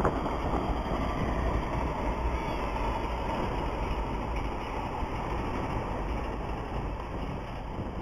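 Steady rushing wind noise on the microphone as the camera moves forward along the open path.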